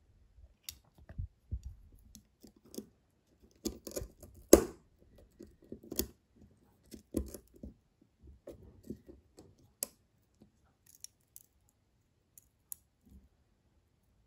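Hand-handled folding knife with a steel blade on bearings: a string of sharp metallic clicks and short scrapes as the blade is pivoted and the handle pressed together, loudest about four and a half seconds in, thinning to a few faint ticks in the second half. The owner hears a trace of grit in the action, which he takes for leftover sand.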